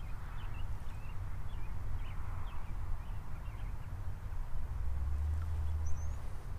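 Wind rumbling on the microphone, heavier from about five seconds in, with small birds chirping in the background.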